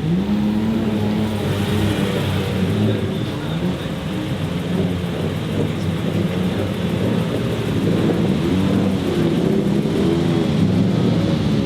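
Several Mercedes-Benz racing car engines running together as a parade of cars goes past, their pitches overlapping and rising and falling.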